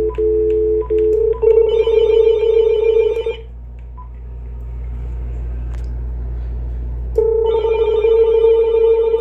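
A phone line's dial tone, broken by a few short keypress beeps, then a telephone ringing twice: about two seconds of trilling ring, a pause of about four seconds, then a second ring. It is a call placed to the Uniden EXAI7980 answering machine to access it remotely.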